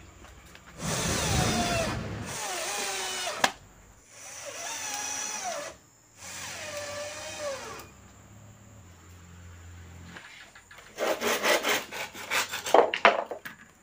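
A small motor whirs in three bursts of about two seconds each, its pitch wavering up and down, then a quick run of clicks and rattles near the end.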